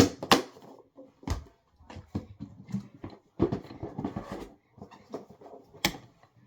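Hard plastic storage cases of a Kobalt CaseStack toolbox being handled: a series of sharp clicks and knocks, the loudest at the start and again near the end, with rattling and rubbing of plastic between.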